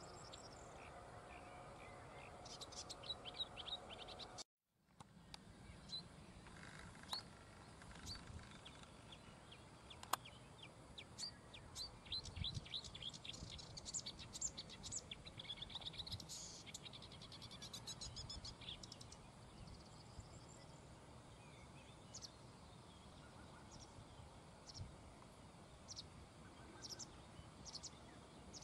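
Marsh warbler singing a fast, varied chatter of short high notes, broken by a brief gap about four and a half seconds in.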